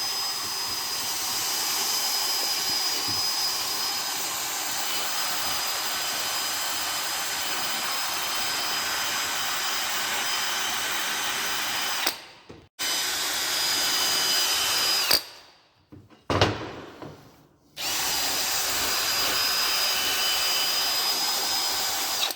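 Electric power tool motor running with a steady high whine, in long runs broken by a few short stops; once, about two-thirds of the way in, its pitch drops as it spins down.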